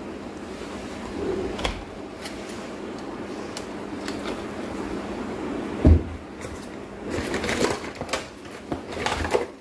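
Plastic digital watch case being prised apart by hand: scraping and small clicks of plastic on plastic, a single thump about six seconds in, then a denser run of scraping and snapping clicks near the end.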